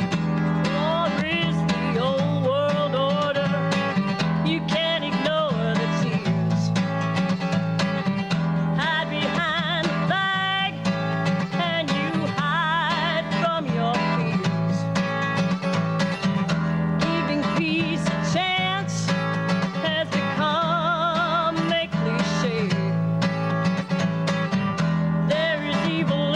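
Country-style protest song with acoustic guitar: a melody that wavers with vibrato over steady bass notes.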